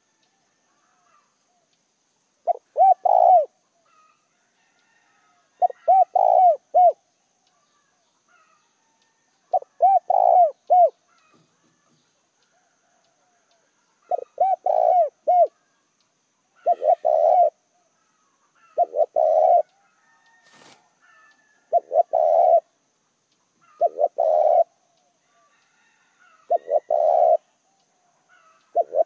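Spotted dove cooing: about ten repeated phrases of a few low, mellow coo notes, every two to three seconds. This is the dove's advertising call, given here by a decoy bird used to draw in wild spotted doves.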